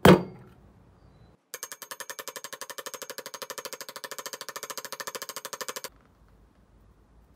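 A hammer blow on a socket driving a bearing into a Honda CT70's aluminium crankcase half. About a second and a half in comes a rapid, very even run of hammer taps on the socket, about ten a second for some four seconds, then it stops abruptly.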